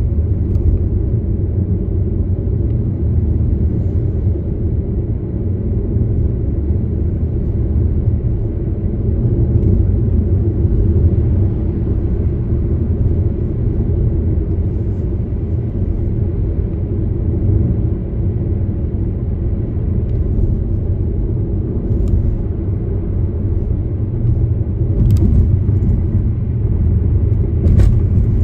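Steady low road rumble of a car driving: engine and tyre noise as heard from inside the moving car, with no change in pace.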